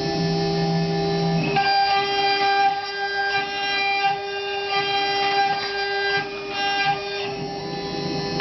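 CNC mill spindle at 24,000 RPM with a 1/4-inch two-flute endmill pocketing aluminum: a loud, steady high-pitched whine, with higher cutting tones that shift and swell every second or so as the toolpath turns and the cut engages.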